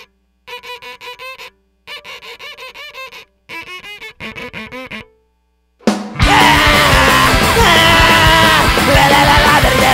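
Background music: groups of short, quick repeated notes, a brief silence about five seconds in, then loud rock music starting about six seconds in.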